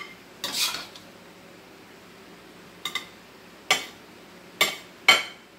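Slotted spatula scraping and tapping stir-fry out of a nonstick wok onto a plate: a short scrape about half a second in, then four separate sharp clinks in the second half.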